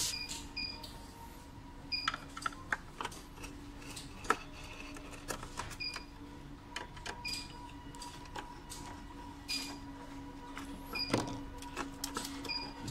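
Scattered clicks and knocks of a screwdriver and hands working on the electrolyte analyzer's sampling assembly while its screws are undone. The loudest is a sharp click about four seconds in, and a fuller knock comes near the end. A steady hum runs underneath, with short high chirps recurring every second or so.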